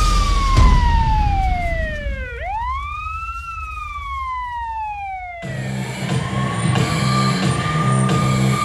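Wailing siren in a dance track's intro, gliding slowly down, rising again about two and a half seconds in, then falling. About five and a half seconds in, electronic music with a pulsing beat starts under a long held high tone.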